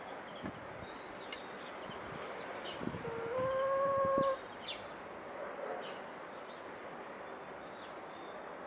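A domestic hen pecking at food on dry soil, with a few soft knocks of its beak, and one drawn-out, steady call from a hen lasting about a second, starting about three seconds in. Small wild birds chirp faintly in the background.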